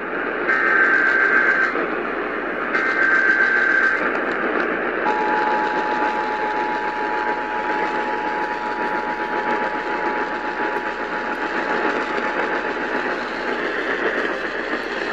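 Emergency Alert System alert received over a static-laden radio. First come two roughly one-second bursts of SAME header data tones; then the two-tone EAS attention signal sounds steadily for about eight seconds before cutting off. Steady radio static hisses throughout.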